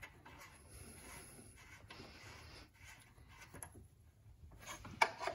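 Faint rubbing and scuffing of a hand turning a new oxygen sensor into the exhaust by hand, its wire spinning along with it. A short knock near the end.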